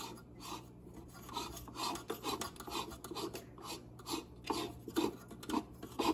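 Rancilio Rocky grinder's brass top burr collar being unscrewed by hand on its fine thread, grating and rasping in short repeated strokes, about two a second, as it is turned counterclockwise.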